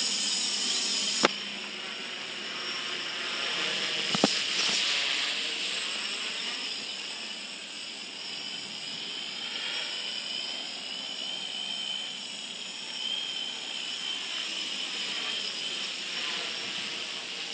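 DJI F450 quadcopter's four brushless motors and 10-inch propellers whining overhead in flight, the pitch wavering up and down as the throttle changes. A sharp click about a second in and another about four seconds in.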